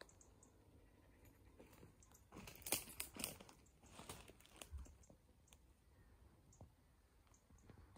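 Faint, irregular crunching of footsteps on dry cut brush and mulch, heaviest for a couple of seconds near the middle.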